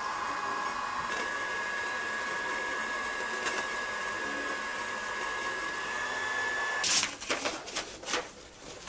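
Comgrow Z1 Pro 20 W diode laser engraver running while it cuts a shape out of paper: a steady fan whir with a thin high whine from the laser head. It stops suddenly about seven seconds in, and paper rustles as the cut sheet is handled.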